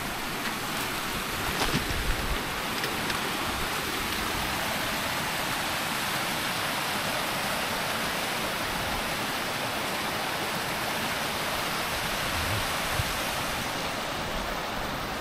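A steady rushing noise at an even level, with a few sharp clicks and crunches of footsteps and trekking poles on loose scree about two seconds in.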